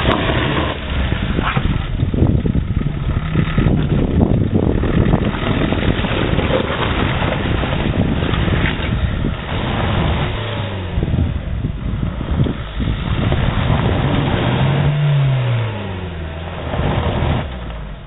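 Suzuki Jimny engine revving under load as the 4x4 climbs a muddy, rutted slope, its pitch rising and falling with the throttle. The engine note drops away shortly before the end.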